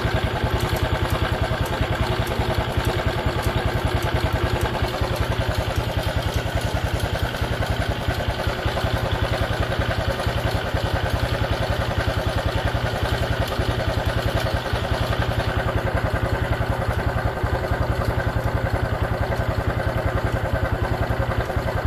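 Modenas Kriss motorcycle's single-cylinder engine idling steadily.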